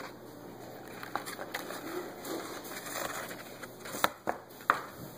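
Paper model canoe being rolled over by hand on a wooden tabletop: light paper rustling, then three sharp taps near the end as the paper hull knocks against the table.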